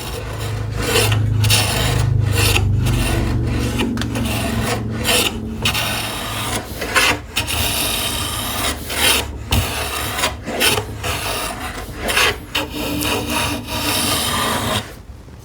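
Hand plane set very shallow taking repeated light shaving strokes along a wooden cabinet edge, about one stroke a second with brief pauses between them. The strokes stop shortly before the end.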